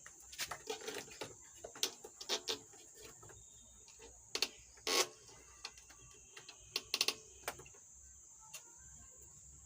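Scattered sharp clicks and small knocks of screws, tools and metal parts being handled while a circuit board is refitted into a power amplifier. The loudest knock comes about halfway, with a quick run of clicks shortly after. A faint steady high hiss sits underneath.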